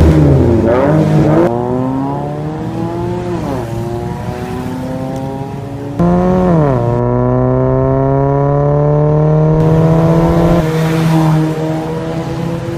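2009 Suzuki Jimny's 1.3-litre four-cylinder through an aftermarket full exhaust with volume control: a couple of quick revs, then the engine pulling under hard acceleration, its pitch climbing steadily and dropping back at each upshift.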